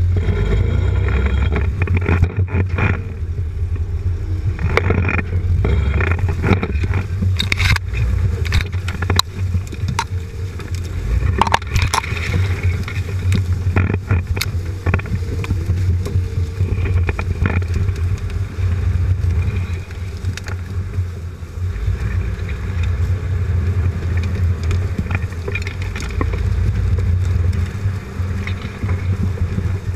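Jeep Cherokee XJ crawling slowly off-road, heard from beneath the vehicle: a steady low engine and drivetrain rumble with scattered knocks and scrapes as the suspension works and the underside meets brush.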